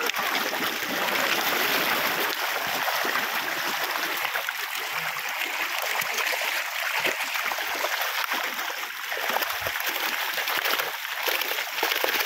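A dense shoal of carp thrashing at the water's surface as they crowd for thrown food: continuous splashing made of many small slaps and spatters, steady throughout.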